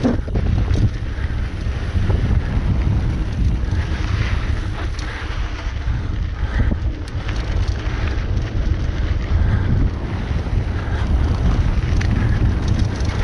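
Wind buffeting the microphone of a camera on a downhill mountain bike riding fast over dry dirt singletrack, a steady low rumble with the hiss of tyres on dirt and a few short clicks and rattles from the bike.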